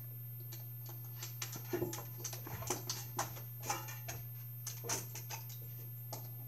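Marker pen tip scratching and squeaking on card in short, irregular strokes while colouring in a small area, over a steady low hum. The strokes come mostly between about one and five and a half seconds in.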